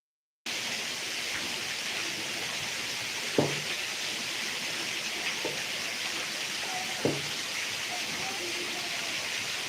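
Heavy rain falling steadily as a dense hiss, cutting in abruptly just after the start. Two sharp knocks, about three and a half seconds apart, are the loudest sounds, with a few faint short tones.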